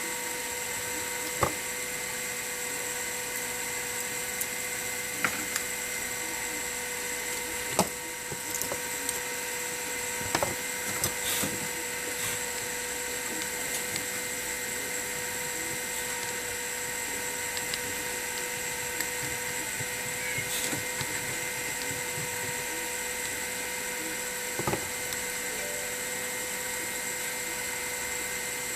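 Steady whine and hiss with several fixed tones, broken by a few light clicks and taps of small tools on a phone being taken apart.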